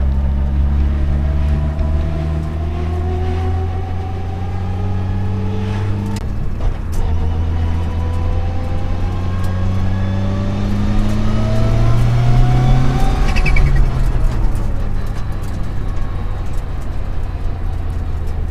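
Mitsubishi Lancer Evo 6's turbocharged four-cylinder engine heard from inside the car, running steadily, then pulling with a slowly rising note for several seconds before the pitch drops sharply a little past halfway as the throttle comes off or a gear goes in. The engine has a misfire.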